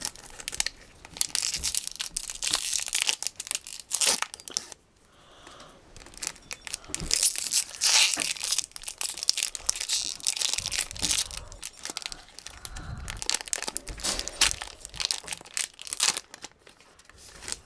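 Pokémon TCG booster pack's foil wrapper being torn open and crinkled, a run of crackling rips and rustles with a short pause about a third of the way through.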